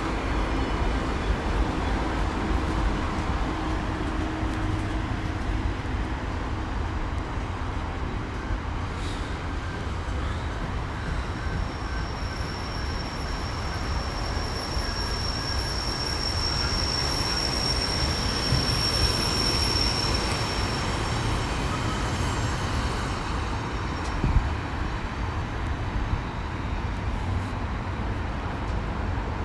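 Container freight train hauled by a Class 66 diesel locomotive passing close by, its wagons rolling over the rails with a steady low rumble. A high, steady squeal comes in about a third of the way through and dies away about two-thirds through, and there is a single knock near the end.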